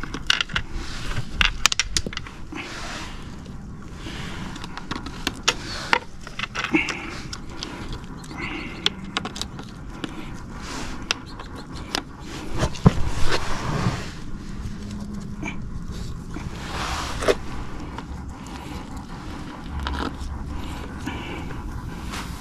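Hard plastic diverter-valve parts being handled and fitted together by hand: scattered clicks and scrapes, with a louder cluster of knocks about 13 seconds in.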